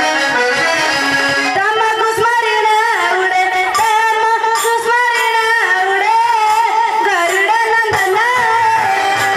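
Music: an instrumental passage, then a high voice comes in singing a wavering, ornamented melody about one and a half seconds in and carries on over the accompaniment.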